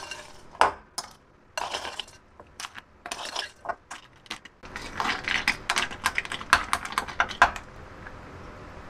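Metal spoon scooping crushed ice from a ceramic bowl into a glass and pressing it down, in quick runs of crunchy scrapes and clinks of spoon on glass and ice. The runs are densest in the second half and stop shortly before the end.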